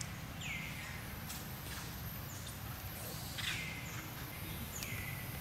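Outdoor ambience with a bird calling three times, each call a quick downward sweep that settles on a steady high note, over a steady low rumble.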